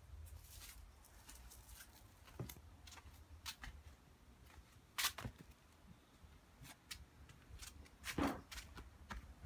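Scattered light clicks and rustles of handling, with two louder knocks, one about five seconds in and one near the end.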